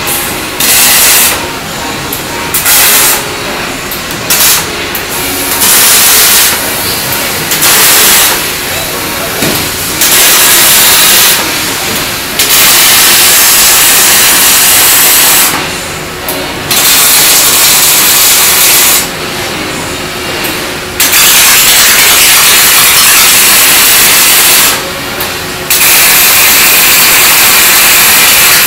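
Robotic MIG welding arc crackling and hissing in a series of welds: several short welds of about a second or less in the first ten seconds, then longer seams of two to four seconds each. A lower steady machine noise fills the pauses between welds.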